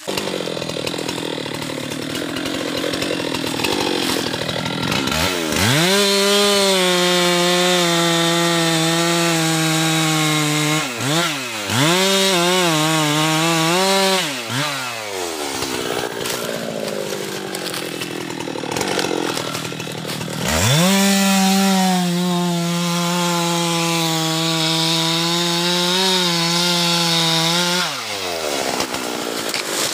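Husqvarna two-stroke chainsaw opened up to full throttle twice, each time for several seconds with a high steady whine that dips briefly, dropping back to a low idle in between and near the end.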